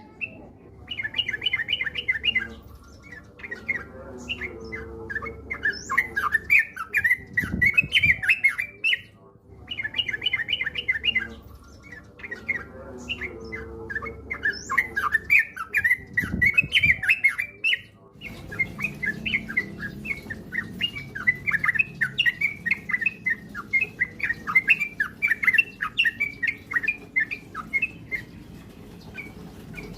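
Yellow-vented bulbul (trucukan) song: runs of quick, bubbly chirping phrases. Two similar bursts of phrases with short gaps are followed, from about the middle on, by a long, unbroken stream of rapid notes, the fast continuous singing keepers call "ropel".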